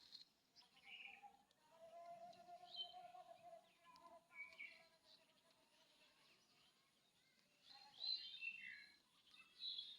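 Faint bird chirps and calls, scattered and short, with a cluster of them near the end, over a quiet pasture background; a fainter drawn-out wavering call runs underneath for a couple of seconds early on.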